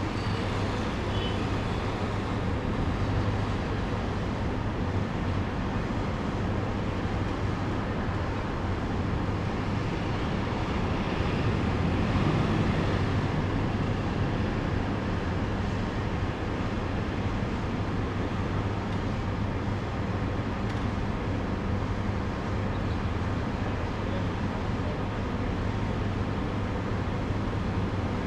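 Street traffic: cars driving past on the road below over a steady low hum. One vehicle swells louder as it passes about twelve seconds in.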